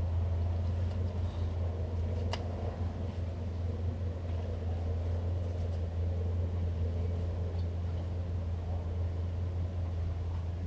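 Steady low mechanical hum, like a motor running, with one sharp click about two seconds in.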